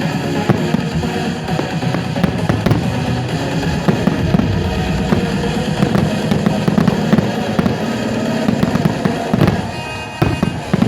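Fireworks salute bursting in many rapid bangs and crackles over loud music, easing briefly near the end before another bang.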